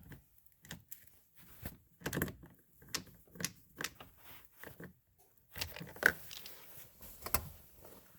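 Irregular light clicks and knocks of a screw and screwdriver being worked into a car's plastic inside door handle, with sharper clicks about six seconds in and again near seven and a half.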